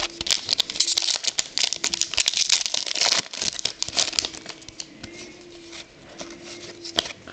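Trading cards and their pack wrapper being handled: crinkling and rapid flicking and rustling as cards are shuffled through. It is busiest for the first few seconds, then quieter.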